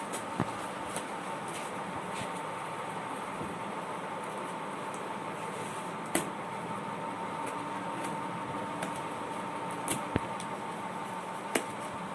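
A steady mechanical hum with a faint high tone running through it, broken by a handful of sharp clicks and knocks.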